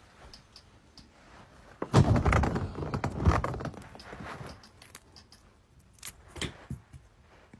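Rustling and muffled thumps of movement for about two seconds, then a few short, sharp clicks.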